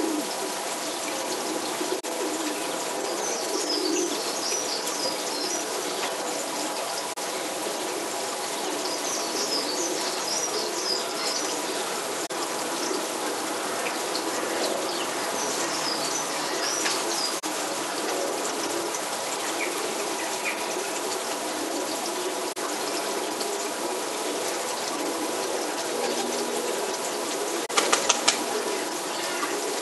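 Birds chirping in scattered high twittering bursts over a steady background hum with a few held tones. A quick run of sharp clicks comes near the end.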